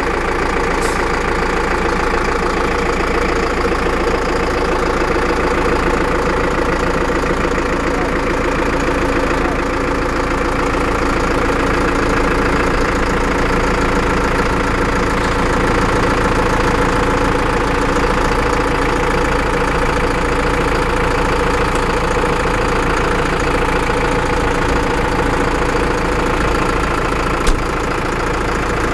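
Zetor Forterra HD 150 tractor's four-cylinder diesel engine idling steadily, with a single sharp click near the end.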